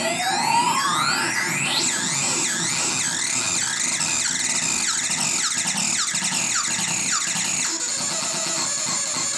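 Hand-built circuit-bent analog noise synthesizer: a pitch glides steeply upward over the first two seconds, then warbles in repeated swoops about twice a second as an LFO modulates it, over a steady high whistle. The swoops die away near the end.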